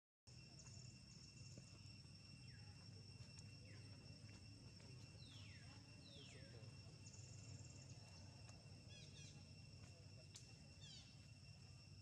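Faint tropical outdoor ambience: a steady high-pitched insect drone, with several short descending bird calls in the middle and a couple of brief rapid trills near the end.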